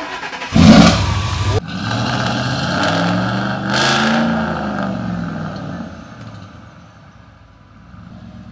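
Custom Ford F-150 pickup's engine cranked and started: it catches with a loud burst within the first second, revs up and back down once, then settles to a steady idle.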